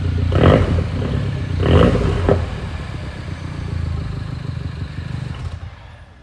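Mini Cooper R56 exhaust with the engine running: two quick throttle blips, the second followed by a sharp crack, then it settles back and dies away near the end.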